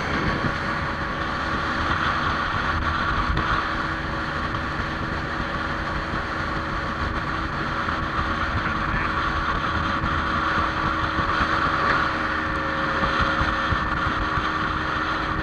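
Motorboat running at speed: a steady engine drone under wind on the microphone and water rushing past the hull.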